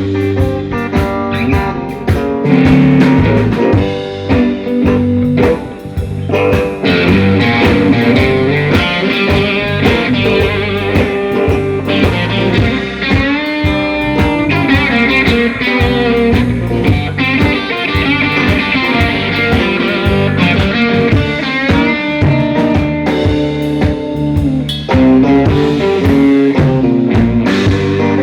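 Live blues-rock band playing an instrumental break: guitar carrying the lead line over bass and drum kit, with no singing.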